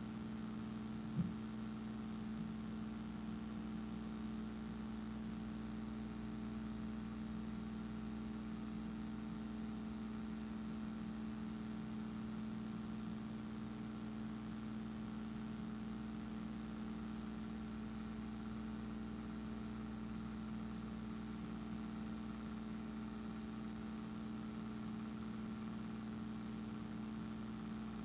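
A steady hum with a few fixed tones, unchanging throughout, with one short click about a second in.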